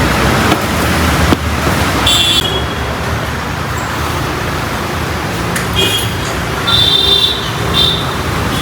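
Steady road-traffic and engine noise, with a few short high-pitched squeaks or chirps about two seconds in and again near the end.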